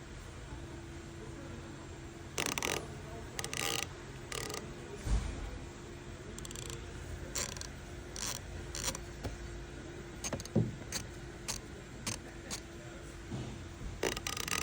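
Capri Tools 90-tooth flex-head ratchets being handled and worked: irregular metallic clicks and short bursts of fine ratcheting, with the loudest bursts a few seconds in.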